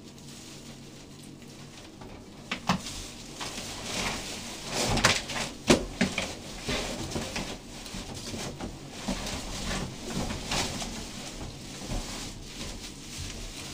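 Plastic wrapping and cardboard box rustling and crinkling as a heavy water softener is handled and pulled out of its box, with a few sharp knocks and bumps, loudest about five seconds in.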